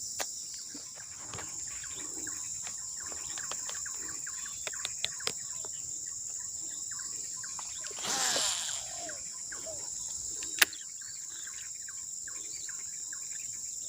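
Insects droning steadily at a high pitch, with scattered small clicks, a brief swish about eight seconds in and one sharp click a little after ten seconds.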